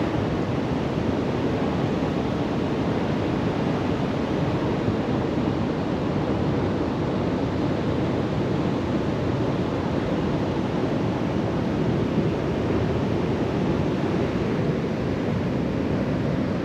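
Steady rushing of fast floodwater in a river swollen by a dam release.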